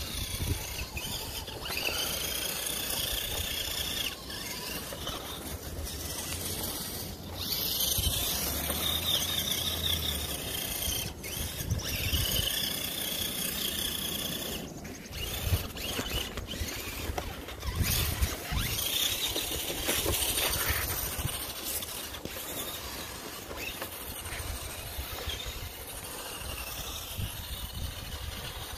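Electric RC crawler trucks driving over snow and ice, their motors and gear trains whining in spurts of a few seconds as the throttle comes on and off.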